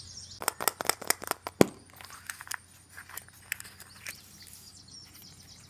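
A surprise egg being opened by hand: a quick run of sharp clicks and crackles in the first couple of seconds, the loudest about one and a half seconds in, then a few fainter ticks.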